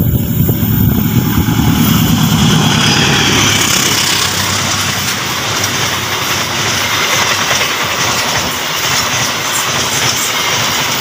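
An express passenger train hauled by a diesel locomotive passes close by at speed. The locomotive's deep engine rumble dominates the first two or three seconds, then gives way to the steady rushing noise of the carriages' wheels on the rails as the coaches go by.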